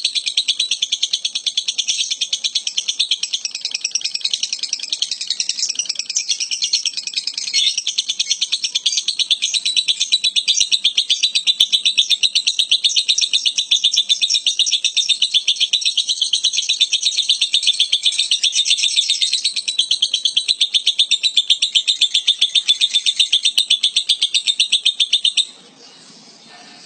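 Lovebird giving one long, unbroken, rapid high-pitched chattering trill of evenly repeated clicks. It stops abruptly near the end.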